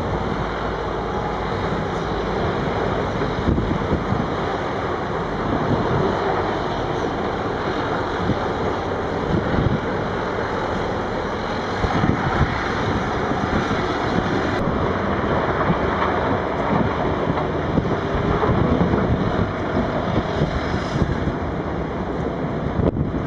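Steady din of heavy diesel machinery working in a rock quarry, with trucks and wheel loaders running and wind buffeting the microphone.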